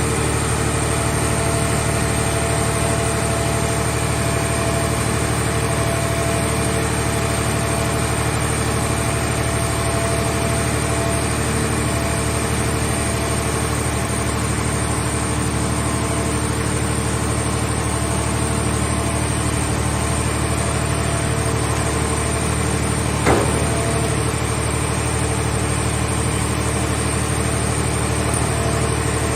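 Vehicle shell baler's power unit (engine and hydraulic pump) running at a steady pitch, with a single short clank about 23 seconds in.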